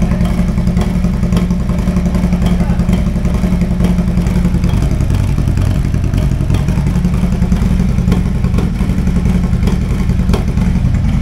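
Harley-Davidson Road Glide's Milwaukee-Eight V-twin with a Wood Performance 22XD cam idling steadily on a true cold start, inside an enclosed trailer.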